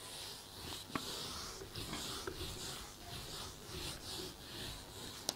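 Duster wiping marker writing off a whiteboard: a run of faint, quick swishing strokes, about two or three a second.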